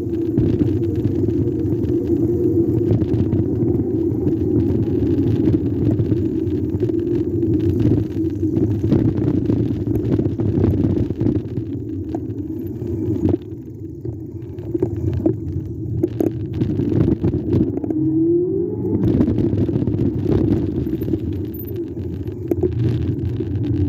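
Continuous low rumble of riding noise from a moving e-bike, with scattered small knocks and a short rising whine of a motor speeding up about 18 seconds in.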